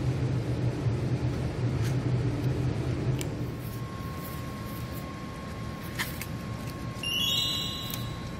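A steady low hum with a few sharp clicks as a cat crunches dry kibble from a metal dish. The hum drops and changes to a thinner, steady high tone partway through. Near the end comes a short, high, shimmering chime-like sound.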